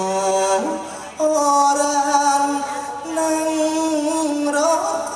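Likay singer singing into a microphone, drawing out long held notes with a slight waver; the second long note bends upward at its end.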